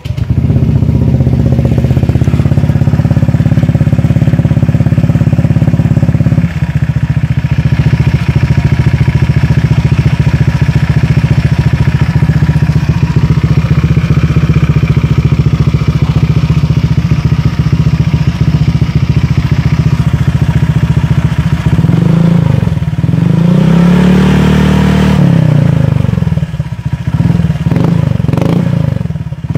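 Honda Vario scooter's single-cylinder four-stroke engine running through an R9 Misano aftermarket exhaust. It starts right away and idles steadily, then revs up and down in several throttle blips in the last few seconds.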